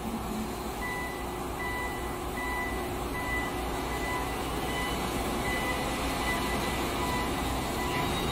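Reversing alarm on heavy loading equipment, beeping steadily about once every three-quarters of a second from about a second in, over a steady machine hum.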